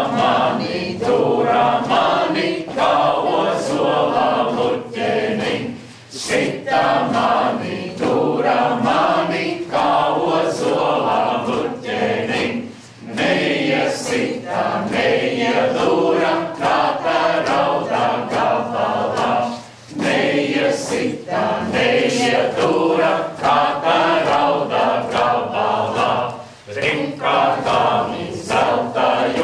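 A mixed group of men and women singing a Latvian folk song together, unaccompanied, in phrases of about six or seven seconds with brief pauses for breath between them.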